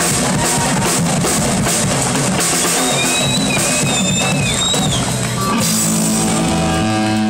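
Live rock band with a drum kit, electric guitar and bass guitar playing loudly, the drums driving hard. About five and a half seconds in the drumming falls away and a held guitar chord rings on.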